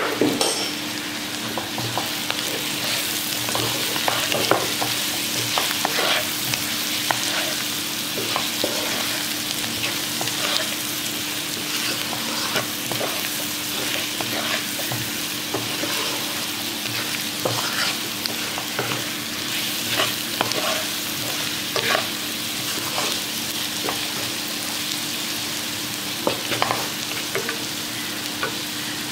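Boiled potato pieces frying with chilli flakes in hot oil in a non-stick wok. The oil sizzles steadily while a wooden spatula stirs and tosses the potatoes, with irregular scrapes and knocks against the pan.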